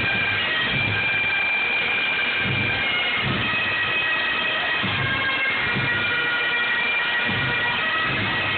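Pipe band playing: bagpipes sounding a tune over their steady drones, with a bass drum beating about once a second.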